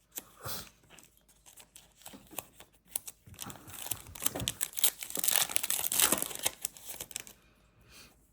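Plastic trading-card pack wrapper crinkling and tearing as it is handled and ripped open. The crackling is sparse at first, busiest and loudest past the middle, then dies away near the end.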